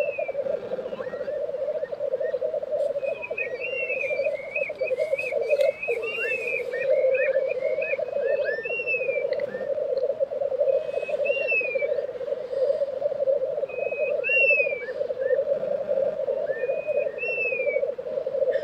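Black grouse cocks displaying at a lek: the continuous low rolling, bubbling song of the males runs without a break. Over it, other birds give repeated short whistled notes that arch up and fall, in quick runs between about 3 and 6 seconds in and then singly every second or two.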